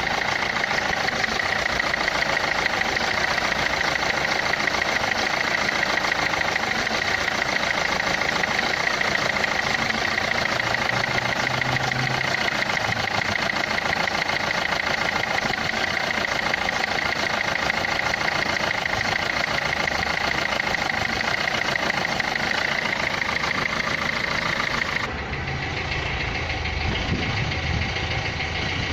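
Renault Clio 3's 1.5 dCi four-cylinder diesel engine idling with a fast, steady clatter, which the title puts down to the injectors. About 25 seconds in the sound changes abruptly and turns duller.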